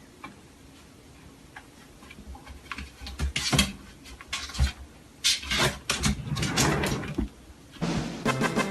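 Irregular knocks and clattering, the sharpest cluster about three to seven seconds in, with music starting near the end.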